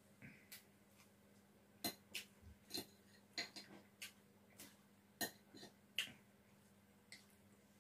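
Quiet, close-up eating sounds while a person eats fried rice with a spoon: a run of about a dozen short, sharp, irregular clicks and smacks, beginning about two seconds in and stopping a couple of seconds before the end.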